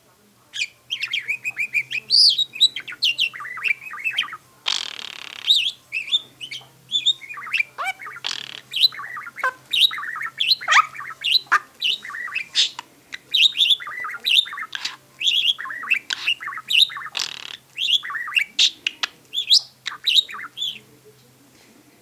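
Budgerigar warbling: a long, fast run of chirps, whistles and chatter, with a few harsh scratchy notes mixed in, in which the budgie imitates a canary's whistling.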